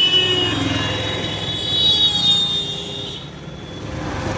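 Street traffic and road rumble heard from a moving scooter, with a long, shrill, high-pitched whine over it that rises slightly and then cuts off suddenly about three seconds in.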